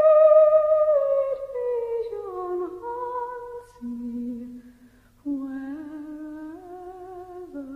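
A woman's voice humming a slow, wordless melody with vibrato, holding long notes that step down in pitch. About five seconds in the sound briefly drops almost to silence, then the humming goes on in a lower register.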